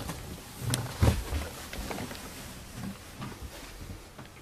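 Footsteps on a wooden floor and stairs: irregular low thumps and small knocks, with a few louder ones about a second in.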